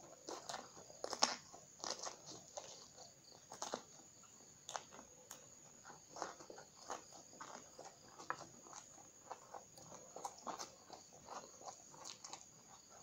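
Close-miked crunching and chewing of raw green eggplant, with irregular crisp bites and wet mouth noises.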